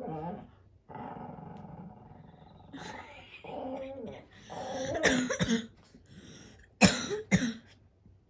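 Small dog grumbling and growling in play while it wriggles on its back, with sharp, louder bursts about five and seven seconds in.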